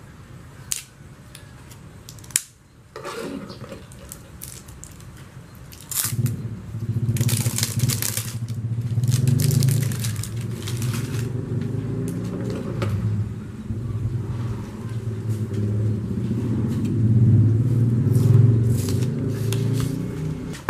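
Plastic wrapping crinkling and crackling as it is cut and peeled off a spool of MIG welding wire, with sharp clicks early on from a box cutter. From about six seconds in, a loud low engine-like hum joins and keeps on under the crackling.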